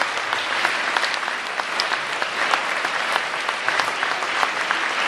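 Crowd applauding steadily, many hands clapping.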